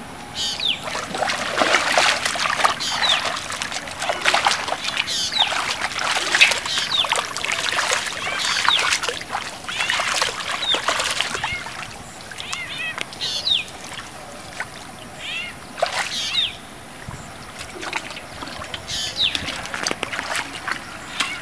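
Hands splashing and sloshing in shallow muddy water while groping for fish, dense and busy for the first half, then more sparse. Birds chirp on and off throughout.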